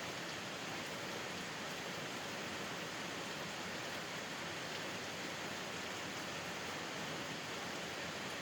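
Steady rain falling, an even hiss of water without separate drops or changes.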